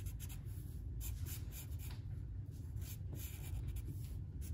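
Black Sharpie permanent marker rubbing across paper in many short, irregular strokes while filling in a thick shadow line, over a steady low hum.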